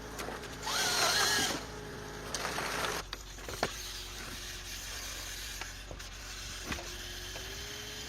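Small forestry harvester at work: its harvester-head saw cuts briefly, rising in pitch, about a second in. After that the machine runs more quietly, with a few sharp knocks.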